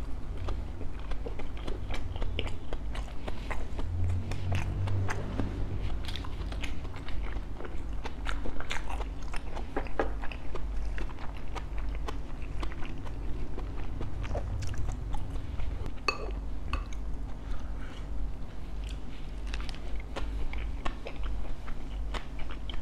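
A person biting and chewing crispy bánh khọt, small pan-fried Vietnamese rice-flour cakes with a meat filling. The mouth is close to the microphone, and irregular short crunches and mouth clicks come throughout.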